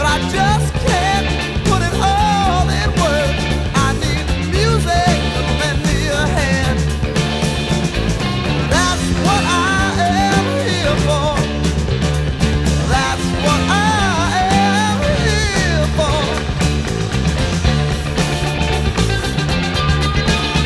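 Blues-rock playing: a Gibson EB-0 electric bass, compressed, keeps a steady bass line under a lead electric guitar that bends and slides its notes.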